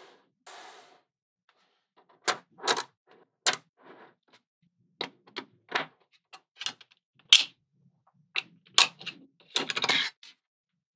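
Small neodymium magnet balls clicking and snapping together as they are pressed into rows and a block, a dozen or more sharp clicks at irregular intervals, with a quick cluster of clicks near the end.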